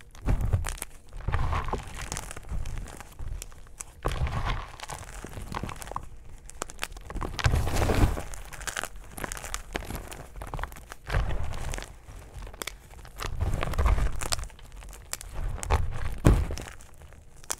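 Hands crushing and crumbling chunks of reformed gym chalk and powder: crunchy, crackly squeezes in repeated waves every second or two, each with a dull thud underneath.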